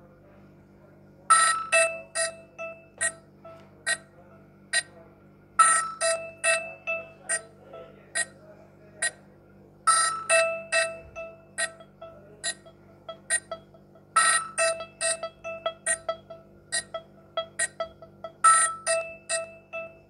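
Nokia 3220 polyphonic ringtone playing: a short melody of quick, sharp notes that starts about a second in and loops about every four seconds.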